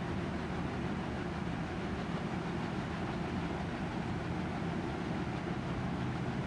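Steady low hum with a hiss over it.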